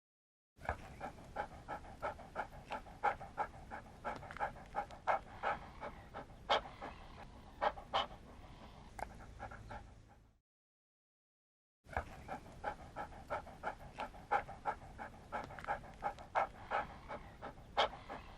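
Medium-sized dog panting in quick, even breaths, about two or three a second; the panting stops for a second and a half near the middle, then starts again.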